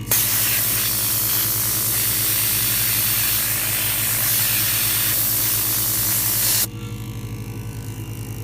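12-volt portable air compressor running with a fast, even pulsing, under a loud rush of hissing air that cuts off suddenly about six and a half seconds in.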